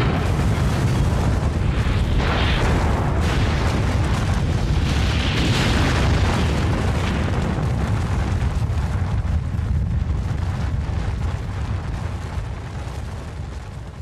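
Deep, continuous rumble of an atomic bomb blast, swelling about two and five seconds in and fading away over the last few seconds.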